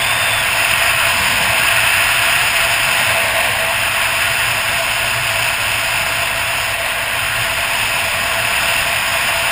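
Steady wind rush over the microphone of a motorcycle at road speed, with the low, even running of a Suzuki DR800's big single-cylinder engine underneath.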